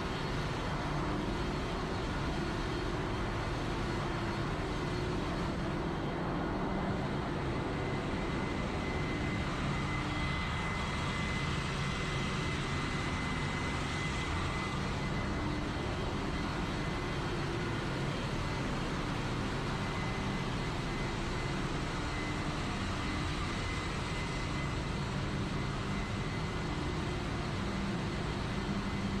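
Steady, unbroken machinery noise of a tanker ship's engine room running, with a low hum and a faint steady high whine among it.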